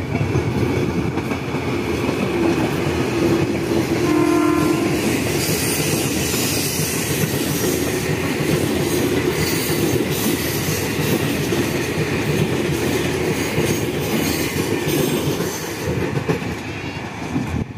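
Ex-Tokyo Metro 6000 series electric commuter train passing close by: a steady rumble of wheels on rail with clicking over the rail joints. A short horn sounds about three to four seconds in.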